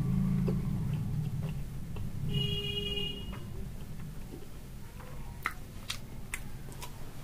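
Close mouth and finger sounds of eating by hand, with a low rumble in the first few seconds and sharp wet clicks and smacks later on. A short electronic beep sounds about two and a half seconds in.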